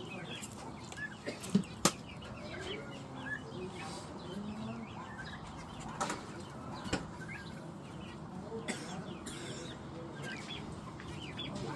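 A group of small finches chirping busily, with wings fluttering and a few sharp clicks.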